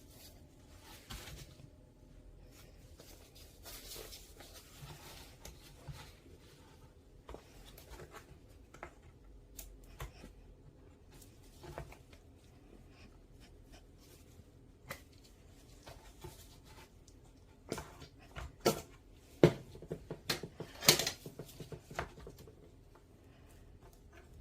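Objects being handled at close range: scattered light taps and rustles, then a run of louder clicks and crinkling clatter for several seconds near the end.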